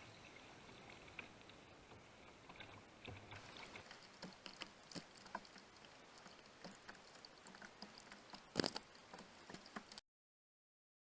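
Faint patter and scattered small ticks of water around a kayak, with one sharper knock about two-thirds of the way in. The sound cuts out to dead silence near the end.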